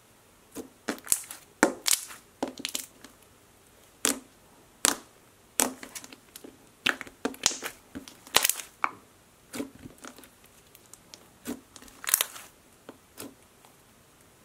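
Thick orange strawberry banana smoothie slime being squished, poked and folded by hand, giving irregular short wet pops and clicks, roughly one or two a second.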